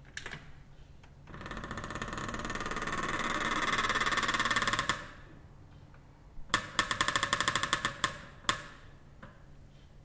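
Heavy metal door creaking slowly on its hinges: a rapidly pulsing creak that grows louder for a few seconds and then stops. After a short pause come about two seconds of sharper, stuttering creaks.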